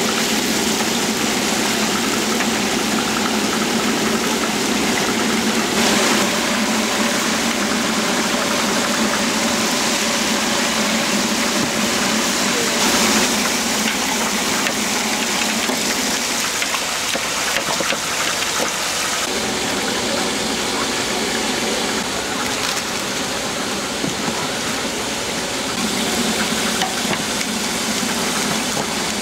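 Steady night-market background: a continuous mechanical hum under a loud, even rushing noise, with no clear speech standing out.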